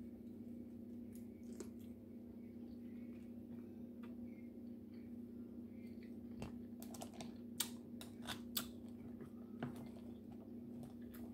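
Faint, sharp clicks and cracks of crab shell being broken and picked apart by hand, bunched together from about seven to ten seconds in, over a steady low hum.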